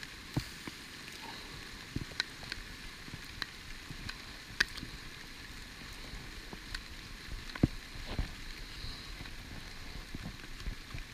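Pouring rain: a steady hiss of rainfall with scattered sharp taps.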